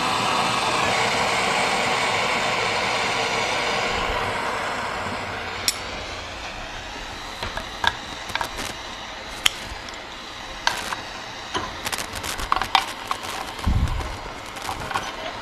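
A soldering torch's flame hissing steadily, dying away about five seconds in. Then scattered light metallic clicks and clinks as a small tool and the soldered sheet-metal tank knock against the vise, with a dull thump near the end.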